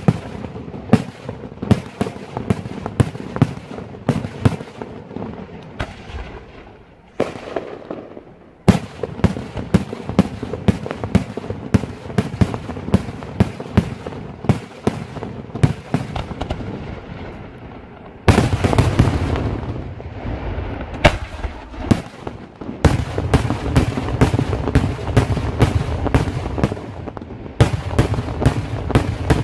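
Daytime fireworks display: aerial shells bursting in a rapid run of sharp bangs, several a second. There is a short lull about seven seconds in, then a heavier barrage with dense, rapid bangs from about eighteen seconds on.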